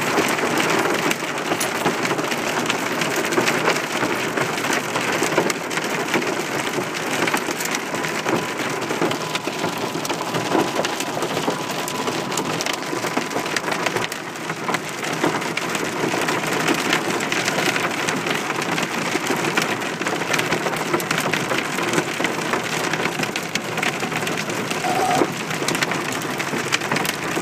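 Heavy rain mixed with hail pelting a car's roof and windshield, heard from inside the car: a dense, steady drumming full of sharp little ticks.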